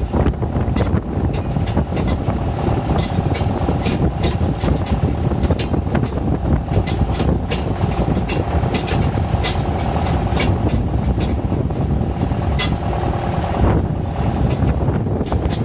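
Tractor engine running steadily as it pulls a passenger trailer over a bumpy track, with the trailer rattling and knocking irregularly throughout.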